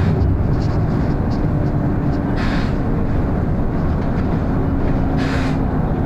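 Volvo B7RLE single-deck bus heard from inside while under way: its six-cylinder diesel engine runs with a steady low drone and a faint steady tone. Two short hisses of air come about two and a half and five seconds in.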